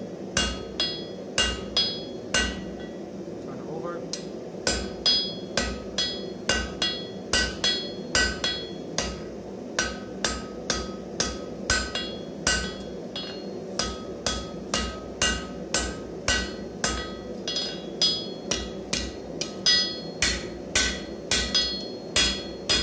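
Hand hammer striking a red-hot steel bar on the edge of an anvil, about two to three ringing blows a second with a few short pauses, isolating material at the anvil's edge. A steady low hum runs beneath the blows.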